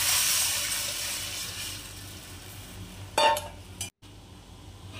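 Tamarind and chili-powder liquid poured into hot oil and sautéed onions in an aluminium pot, sizzling loudly and dying away over the first two seconds. About three seconds in, a short ringing metal clank as the aluminium lid knocks against the pot.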